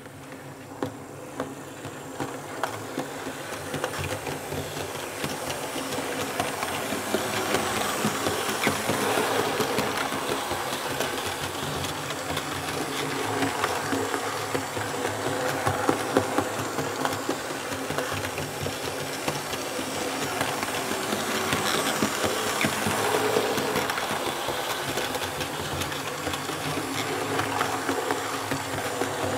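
H0-scale Märklin E41 electric locomotive and coaches running on Märklin K-Track laid on a single Zeon-kasei SANDAM CZ-12 sound-insulating sheet: a steady rolling rattle with dense clicking, growing louder over the first several seconds and then holding level.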